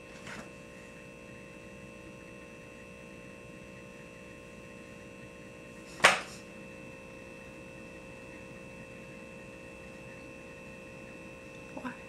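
Quiet room tone with a steady electrical hum made of several fixed pitches, broken once about halfway by a single sharp click.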